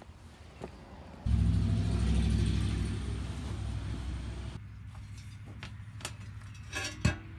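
An engine running, starting abruptly about a second in with a low hum that fades over the next few seconds. A single sharp knock near the end.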